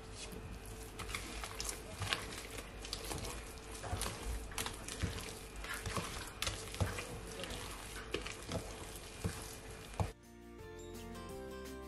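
A wooden spoon stirring thick cookie dough in a glass bowl, with irregular scraping and knocks of the spoon against the glass. About ten seconds in the stirring stops and background music takes over.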